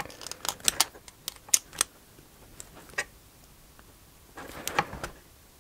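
Small sharp metal clicks and ticks of pliers working at the small electric motor of an RC nitro starter box, a quick string of them in the first two seconds, a few more around the middle and another cluster near the end.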